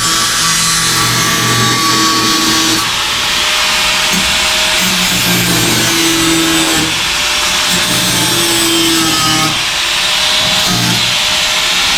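A power tool running steadily on the car's sheet-metal body panel, with background music playing over it.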